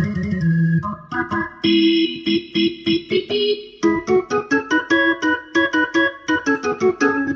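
Organ voice on a Yamaha PSR-S970 arranger keyboard, played by hand: held chords at first, then from about four seconds in a run of quick, short repeated notes.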